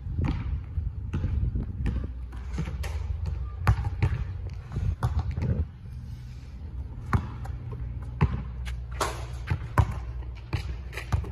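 Basketball dribbled on an asphalt court: a string of bounces at an uneven pace.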